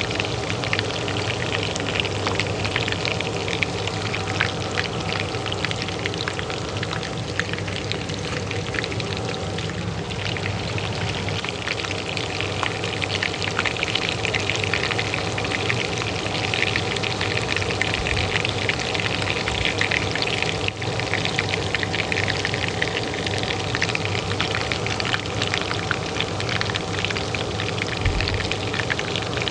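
Hot oil frying with a dense, steady crackle and spitting, over the constant hum of a kitchen range hood fan.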